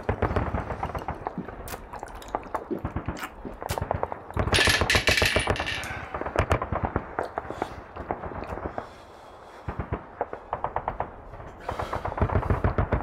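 Rapid bursts of automatic gunfire, shots fired in quick runs, with a louder, longer blast of noise about four and a half seconds in and a brief lull near the end.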